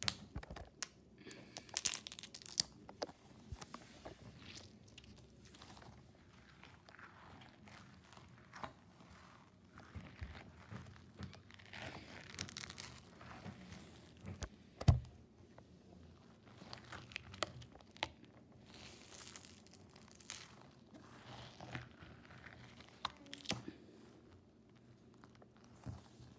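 A rubber stress ball filled with water beads being squeezed and moved about on a wooden table: irregular small clicks and rustles, with one louder knock about fifteen seconds in.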